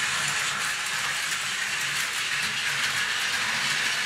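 Battery-powered Plarail toy train running on plastic track: a steady whir of the small motor and gears with faint, regular clicking from the wheels on the rail joints.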